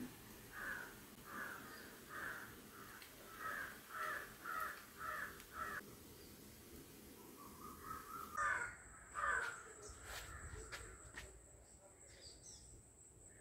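A crow cawing over and over, a run of about eight calls in the first six seconds, then a few more about eight and a half seconds in.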